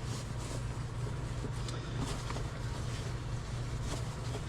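A steady low background hum, with faint soft ticks and rustles of hands working the seal material.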